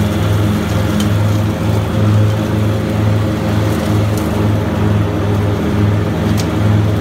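Grasshopper 325D zero-turn mower's diesel engine and Power Vac leaf-collection blower running steadily at mowing speed, with a low drone that pulses in a slow, regular throb.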